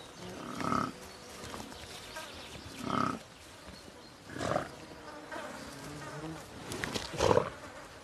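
Flies buzzing, with several loud swells as insects pass close, about four times: typical of flies and horseflies swarming around large animals.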